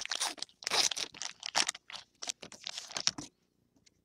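Trading cards and a foil pack wrapper being handled: a run of irregular rustling and crinkling scrapes that stops about three seconds in.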